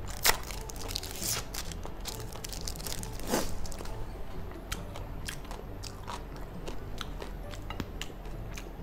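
Crackles and clicks of a thin plastic wrapper being peeled off a processed cheese slice, with close-miked chewing.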